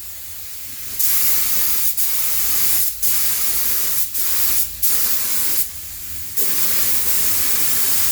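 Compressed-air spray gun spraying primer, hissing in repeated passes of about a second each as the trigger is pulled and released, with a longer pause a little past the middle.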